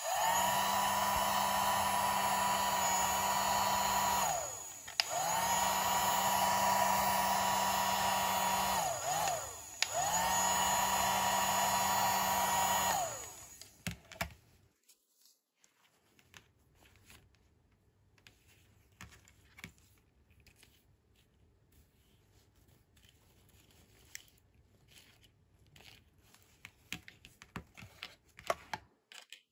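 Pink toy hair dryer running three times for a few seconds each, its whine rising as it starts and sinking as it stops. Afterwards only faint clicks and rustles of small plastic doll accessories being handled.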